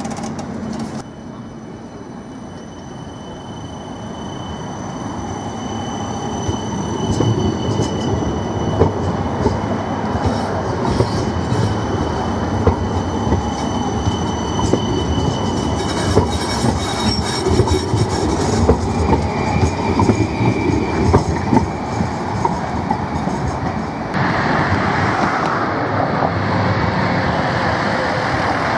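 CAF Urbos nine-section tram moving off and running past, with a steady high whine and a rumble that grows louder as it gathers speed. Many short clicks of the wheels over the rails follow. Near the end a van drives by with tyre noise.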